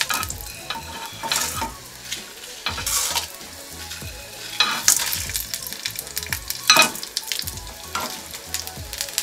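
Whole spices (coriander seeds, cumin, fennel, peppercorns, star anise, dried red chilli) poured into a pan with a little hot oil, rattling onto the metal in short surges every second or two over a light sizzle as they begin to roast.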